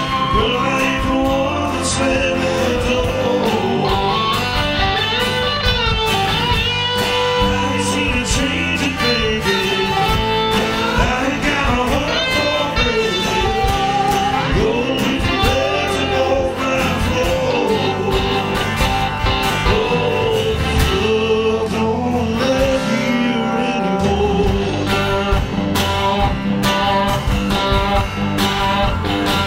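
Live band playing a song: a man singing lead over strummed acoustic guitar, electric guitar, electric bass, keyboards and drums.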